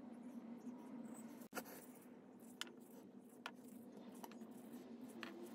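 Quiet room tone: a faint steady low hum with a few light clicks, about one a second, and a brief dropout about a second and a half in.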